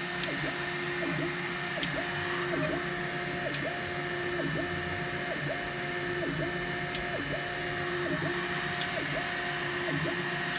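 Neptune 4 Pro 3D printer running, its stepper motors whining in a regular back-and-forth pattern that switches between two pitches about every half second, over a steady high fan tone. The owner reports a squeaking sound from this printer.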